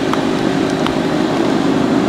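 Mazda 6's 2.0-litre four-cylinder petrol engine idling steadily, with two light clicks in the first second.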